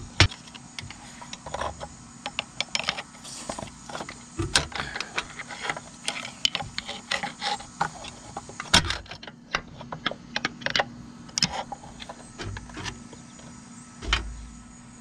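Irregular metal clicks, taps and scrapes from a screwdriver working at the pins and end block of an Allis-Chalmers 5040 tractor's brake band, with a louder knock about nine seconds in and a dull thump near the end.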